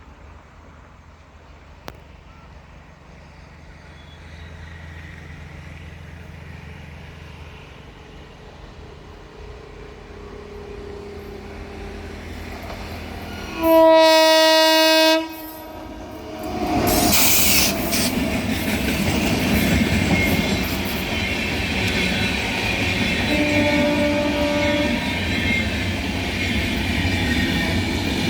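WAP-7 electric locomotive with its express train approaching, a low rumble building steadily. About halfway in comes one long, loud horn blast lasting about a second and a half, then a loud rush as the locomotive draws level, after which the coaches run by with wheel clatter. A second, fainter horn blast comes about three quarters of the way through.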